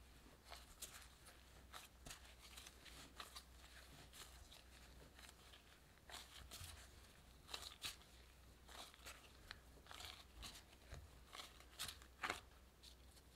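Gloved hand kneading a shaggy bread dough in a glass bowl: quiet, irregular squishing, tearing and crinkling of the dough and the disposable plastic glove, with a couple of louder crackles in the second half. The flour, egg and milk are being worked together into one lump.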